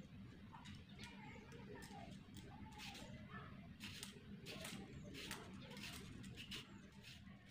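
Faint, irregular scraping and clicking strokes of a small knife peeling a white radish (mooli).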